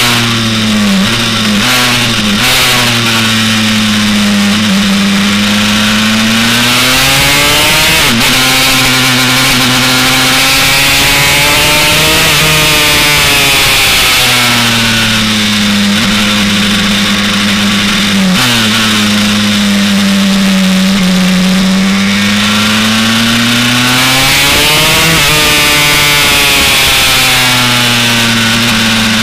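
327cc two-stroke single-cylinder engine (a bored-out Honda TRX 250R motor) of a Honda CR race bike at speed on track. Its pitch sinks and climbs again over and over as the throttle is shut for corners and reopened on the exits, with a few sudden jumps in pitch at the gear changes.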